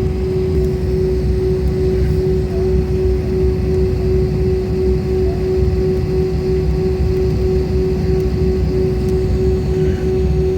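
Jet airliner's engines running at a steady drone: a deep rumble with a constant hum tone on top, holding level with no rise or fall.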